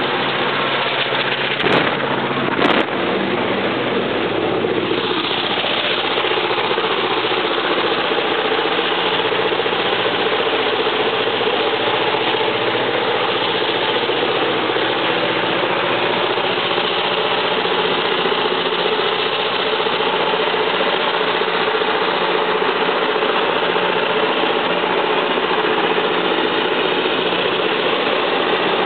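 Diesel-electric locomotives of a heavy grain train working hard up a grade, a loud, steady engine throb. Two sharp clicks come about two seconds in, and a falling tone about four to five seconds in.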